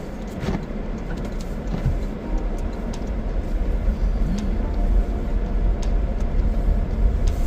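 Car running on the road, a steady low rumble of engine and tyres heard from inside the cabin, with a few faint ticks.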